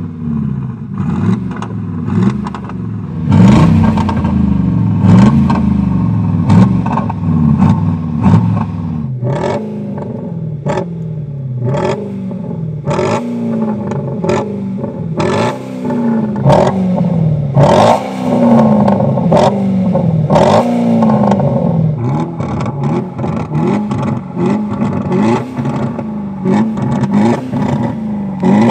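A BMW 520d diesel's electronic active-sound exhaust plays a synthesized V8 engine sound. It is blipped in a long series of short revs, each about a second long, rising and then falling back, with crackling pops between them. The preset first imitates a 4.0-litre biturbo V8, then a 5.0-litre supercharged V8, whose revs are broken by denser pops.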